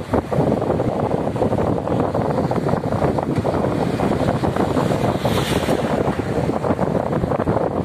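Wind buffeting the microphone with a steady rumble underneath, with a brief hiss about five seconds in.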